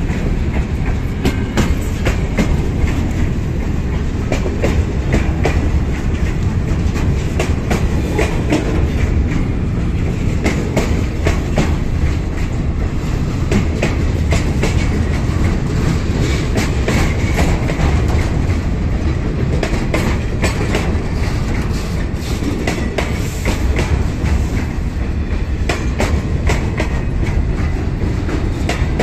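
Freight train cars rolling past: a steady low rumble of wheels on rail with frequent clacks as the wheels cross rail joints.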